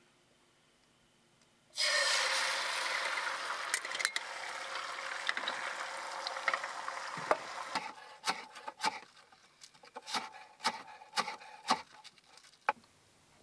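Beaten egg hitting a hot oiled frying pan and sizzling, starting suddenly about two seconds in and slowly dying down as the thin omelette sets. Then a kitchen knife chopping greens on a wooden cutting board, about two chops a second.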